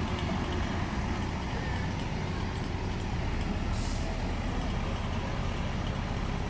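Heavy truck's diesel engine running steadily with a low rumble, with one short hiss of released air about four seconds in.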